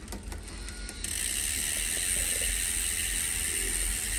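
Bicycle rear freehub ratchet clicking as the rear wheel spins freely behind the 10-speed cassette. There are separate clicks at first, then from about a second in a fast, steady buzz.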